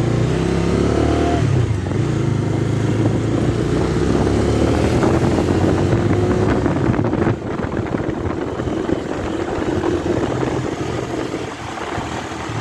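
Bajaj Dominar 250 single-cylinder engine running under way, revving up in the first second or so and then holding steady. It gets quieter about seven seconds in as the throttle eases.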